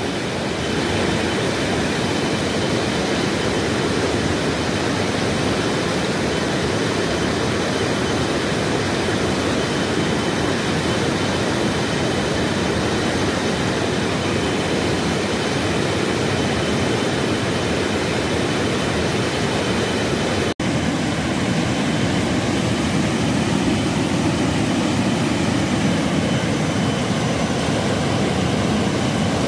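Steady rushing of a swollen river in spate, an even noise with no break except a momentary dropout about two-thirds of the way through.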